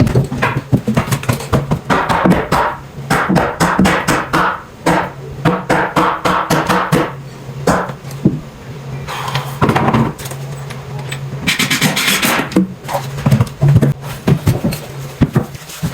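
Background music with a steady low note, over many irregular sharp knocks, often in quick runs: a 2x4 jack stud being knocked up tight under a load-bearing beam.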